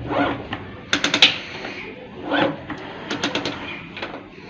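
Motorcycle kick-start mechanism being worked, with bunches of quick mechanical clicks and clacks and a couple of short scraping swells. The kick lever jams instead of going all the way down, which the mechanic puts down to a worn clutch-side kick shaft and bush.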